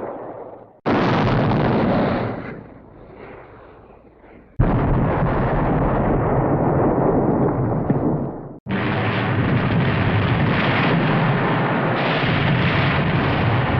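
Hanna-Barbera cartoon explosion sound effects played one after another. The tail of one dies away in the first second, then new blasts begin suddenly about one, four and a half and eight and a half seconds in. Each is a sharp boom followed by a long rumble; the first one fades to a low rumble after about two seconds.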